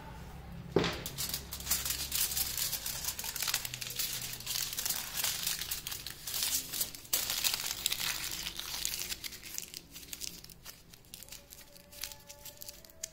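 Sheet of aluminium foil crumpled and scrunched by hand, a dense crinkling that thins out near the end as the foil is squeezed into a small tight roll. A single knock about a second in.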